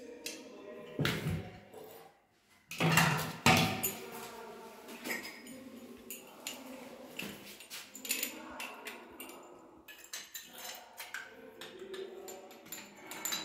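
Metal clinks and knocks from a screwdriver and chrome tumbler holder parts being handled and fitted onto a wall-mounted base. The loudest knocks come about a second in and around three seconds in.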